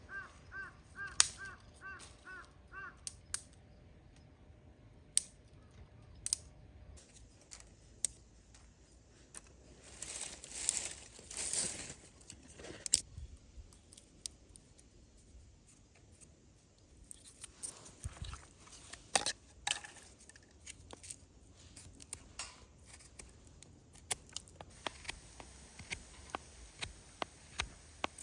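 A crow cawing about seven times in quick succession in the first few seconds, followed by scattered clicks, knocks and rustling from camp gear being handled.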